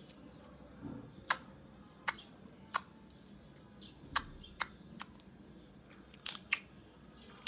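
Slime being worked in the hands, giving off about seven sharp clicking pops at uneven intervals, the sound of small air pockets bursting in the slime.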